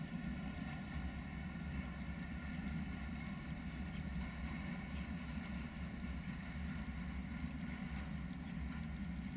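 Distant freight train heard out of sight, a steady low rumble with a faint mechanical hum that holds even throughout.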